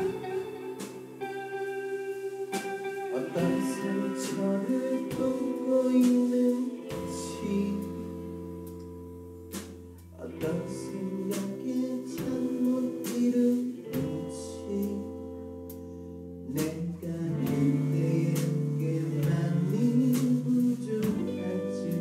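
Live rock band playing: electric guitars and drums, with a male voice singing, easing into a softer stretch partway through before building up again.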